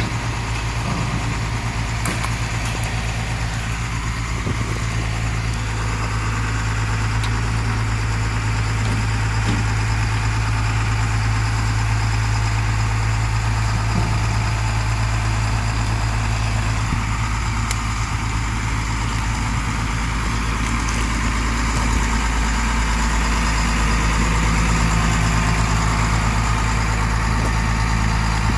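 A large engine idling steadily with a deep, even hum, getting slightly louder toward the end.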